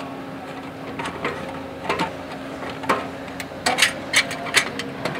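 Metallic clinks and knocks of a V-band clamp and exhaust pipe being worked loose as the stock catalytic converter comes free of a Porsche 992 Turbo's exhaust. The knocks are scattered at first and come thicker near the end, over a steady low hum.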